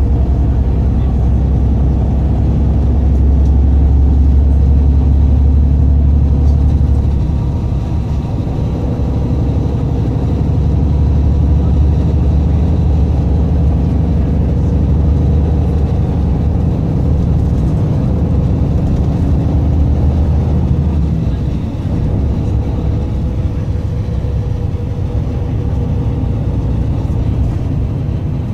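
Inside a moving bus: the engine's steady low drone and road noise through the cabin. The deep drone eases about three-quarters of the way through.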